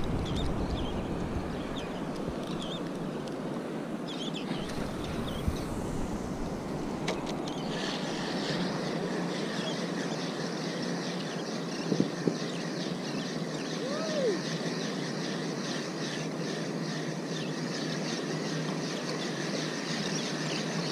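Steady wind and lapping sea water along a rocky shoreline, with faint scattered bird chirps and a few light clicks.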